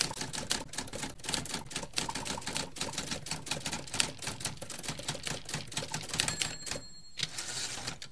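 Manual typewriter keys clacking in a rapid, uneven run. About six seconds in the margin bell rings, followed by a short sliding rasp of the carriage return.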